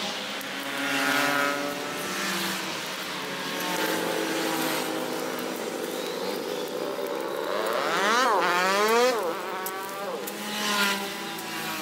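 Brush cutter engine running and revving up and down as it cuts through overgrown grass. Its pitch swoops sharply up and down a couple of times about eight seconds in.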